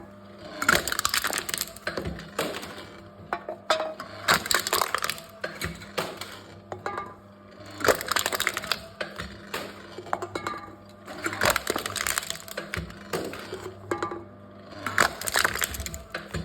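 Aluminium drink cans being crushed one after another by a crushing machine: a crackling, crunching burst about every three and a half seconds, five in all, over a steady low hum.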